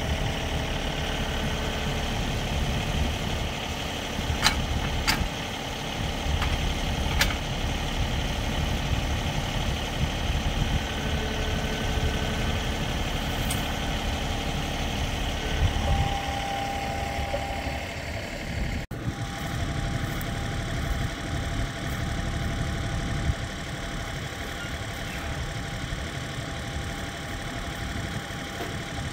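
John Deere compact tractor's diesel engine running steadily, with a few sharp clicks in the first several seconds. About two-thirds of the way through the sound changes abruptly and the engine goes on running more quietly.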